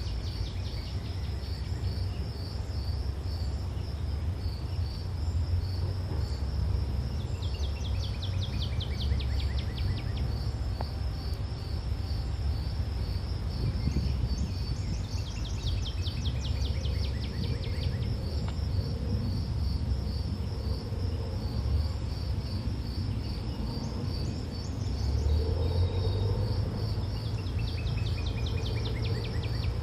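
Forest insects, crickets among them, calling steadily with a high pulsing chirr. Three times a fast falling trill cuts across it, each lasting about two seconds. A low rumble runs underneath.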